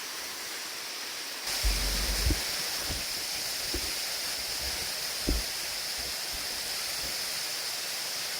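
Rushing water of a waterfall running under winter ice, a steady hiss that grows louder about a second and a half in. A few soft low thumps sound over it.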